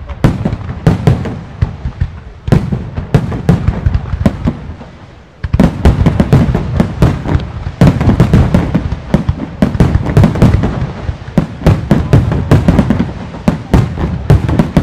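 Fireworks display: a rapid barrage of aerial shell bursts and bangs that eases off briefly about four seconds in, then comes back dense and continuous about five and a half seconds in.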